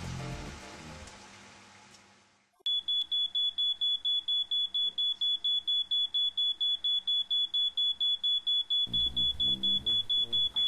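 Background music fades out, and after a moment's silence a smoke alarm goes off: a rapid, steady high-pitched beeping, about five or six beeps a second. It is set off by the fry-up left cooking on the hob.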